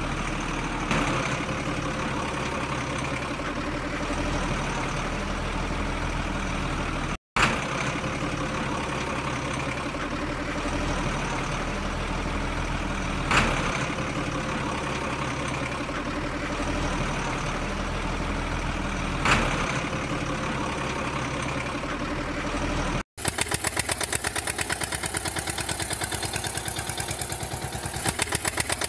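Engine sound of a truck running steadily, with a few short loud bursts. A little over three-quarters of the way through it cuts to a faster, evenly chugging engine like a tractor's.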